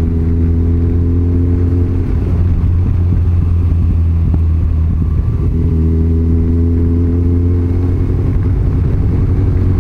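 Motorcycle engine running at a steady cruising speed, heard from the rider's seat while riding, under a constant low rumble. The engine note drops back about two seconds in and picks up again a few seconds later.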